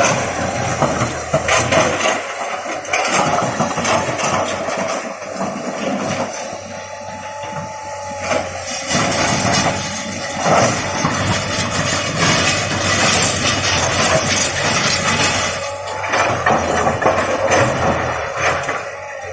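Tata Hitachi 200 Super excavator's diesel engine running as the machine works, with frequent irregular knocks and clanks.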